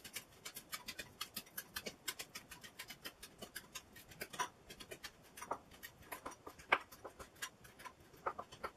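Knife chopping chives finely on a plastic chopping board: quick, regular taps of the blade on the board, about five a second, with a few louder taps in the second half.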